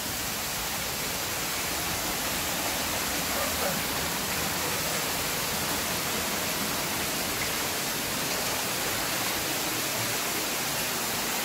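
Steady rush of falling water: floodwater pouring into a mine tunnel after heavy rain.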